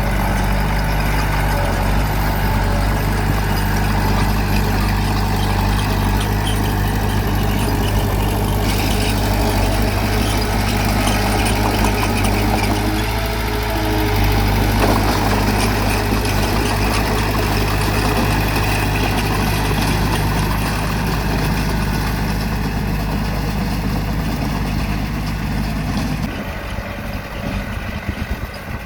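Bulldozer's diesel engine running steadily under load, a deep even drone with mechanical clatter over it; the deep part of the engine note drops away near the end.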